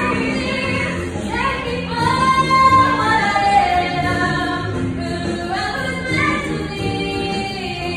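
Two girls singing a Broadway show-tune duet into microphones, with a musical accompaniment under them. The voices glide up into long held notes.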